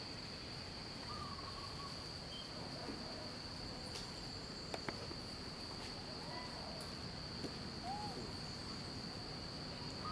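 A steady, high-pitched drone of insects such as crickets or cicadas, with a few short bird calls scattered through it. There are two faint clicks about halfway through.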